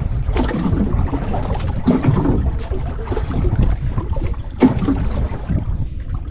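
Wind buffeting the microphone and sea water lapping and slapping against the hull of a small outrigger boat, with irregular knocks.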